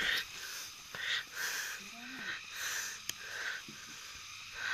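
Heavy, rhythmic breathing close to the microphone, about two breaths a second, from someone hiking on foot. Faint voices are heard in the background.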